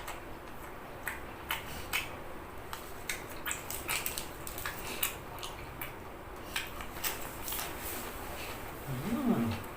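Close-up eating sounds: irregular chewing clicks and wet mouth noises as steamed squid is eaten, with a few light utensil or dish clicks. A brief hummed voice sound near the end.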